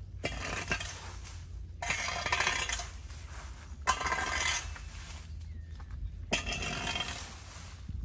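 A broom sweeping dry fallen leaves and hard seed pods across a concrete pavement: a scratchy rustle with the pods clinking and rattling, in about four long strokes with short pauses between them.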